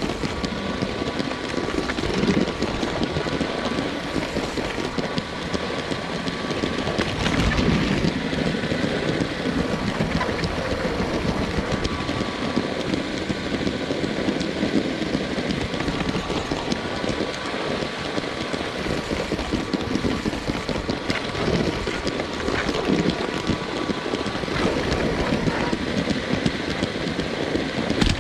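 Lego train's small electric motor whirring steadily as the train runs along plastic track, picked up close by a camera riding on the train, with a few sharp clicks from the wheels over track joints.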